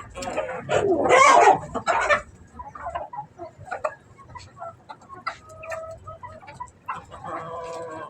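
Flock of Aseel desi chickens clucking and calling. One loud, drawn-out call comes about a second in, then short scattered clucks, and a longer pitched call near the end.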